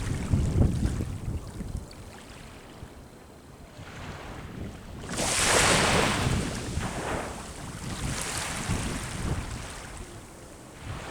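Sea waves breaking on the shore: one wave crashes about halfway through with a loud hissing wash that fades over a few seconds, and a smaller surge follows. Wind buffets the microphone with a low rumble near the start.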